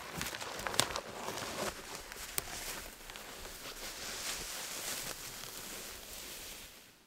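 Firewood being handled and worked: scattered sharp cracks and knocks over the first couple of seconds, then a steady rustling hiss that fades out near the end.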